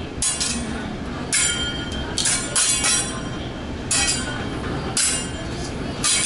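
Teppanyaki chef's metal utensils striking the steel griddle: a series of about seven sharp, ringing metallic clangs, irregularly spaced, over a steady restaurant din.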